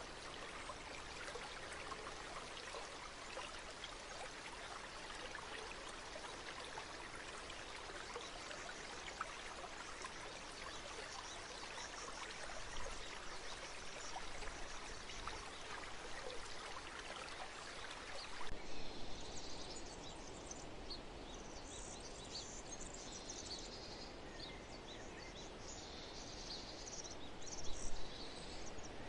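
Nature ambience: a steady rushing like a flowing stream, which cuts off abruptly about 18 seconds in. It gives way to scattered high chirping of birds and insects over a quieter background.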